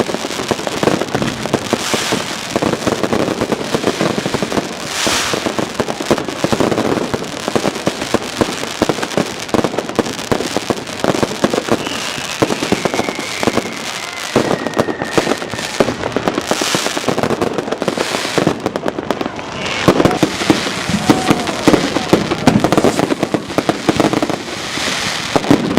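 Many fireworks and firecrackers going off at once: dense, unbroken crackling and banging. About halfway through, a whistling firework glides down in pitch, and the bangs come thicker and louder toward the end.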